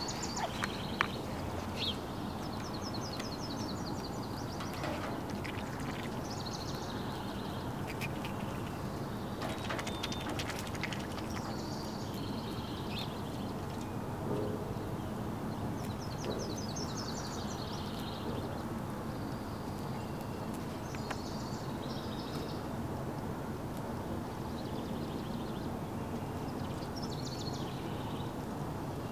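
Steady outdoor background noise with a small wild bird singing short, high, trilled phrases every few seconds, and a few light clicks as a black Australorp hen pecks and tears at grass.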